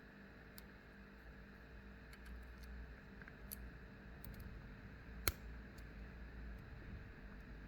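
Faint small clicks and ticks of a pick and tensioner working the pins of a stainless steel 5-pin tubular padlock while it is picked back to the locked position, with one sharper click about five seconds in.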